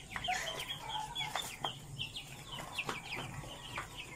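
A small flock of hens clucking and chirping: a quick, continuous run of short, high, falling calls, with a few faint taps in between.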